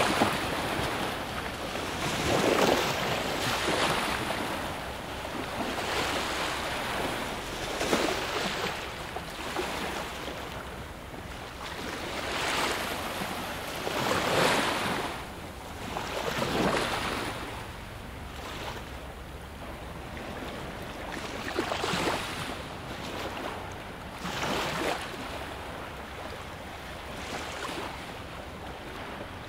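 Small sea waves lapping and washing over a stony shoreline in shallow water, coming in irregular swells every two to three seconds.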